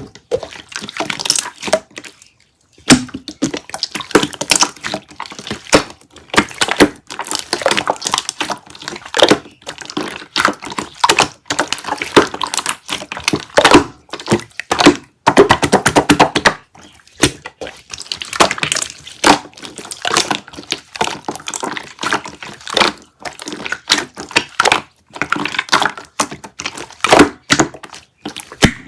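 Slime being squeezed, stretched and pressed by hand, giving dense irregular wet clicks and crackles as air pockets pop, with a brief pause about two seconds in.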